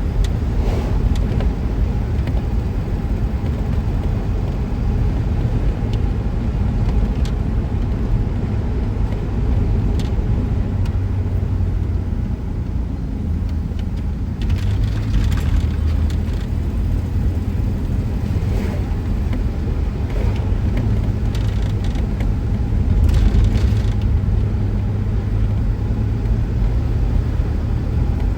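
Car driving, a steady low road and engine rumble, with a few brief swells of hiss partway through.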